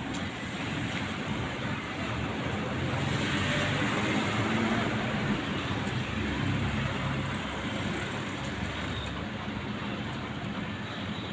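Street traffic noise, a steady hum of passing vehicles that swells a little from about three to seven seconds in.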